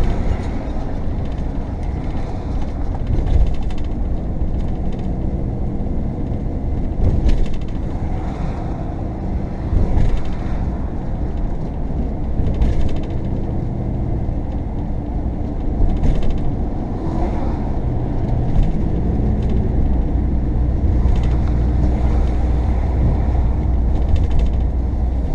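Inside a moving RV: steady engine and road rumble with frequent rattles and creaks from the coach.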